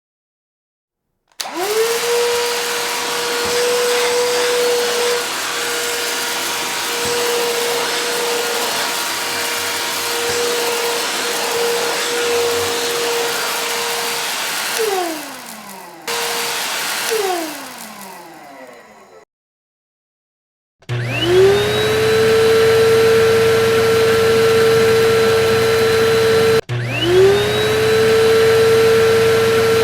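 Vacuum cleaner switched on and running steadily with a whine, then switched off and winding down with a falling whine. After a short silence it starts again, the whine rising as the motor comes up to speed, then cuts out briefly and starts up once more near the end.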